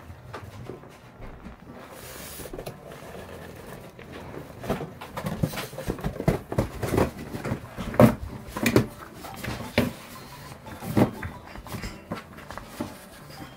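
A French bulldog shoving and tossing a small cardboard box about on a carpeted floor: irregular knocks and scrapes of cardboard, starting a few seconds in, the two loudest near the middle and towards the end.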